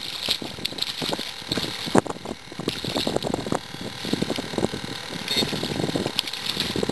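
Spinning reel being cranked as a hooked fish is reeled to the boat, with the fish splashing at the surface and a sharp knock about two seconds in.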